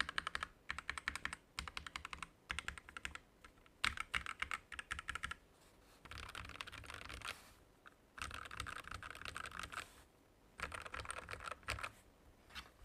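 Typing on a mechanical keyboard with Gateron Yellow linear switches: quick runs of keystrokes broken by short pauses.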